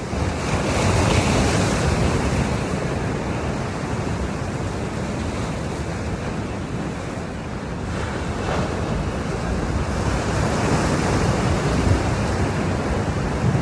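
Heavy surf breaking on a beach: a continuous wash of crashing waves that swells about a second in and again near the end, with wind buffeting the microphone.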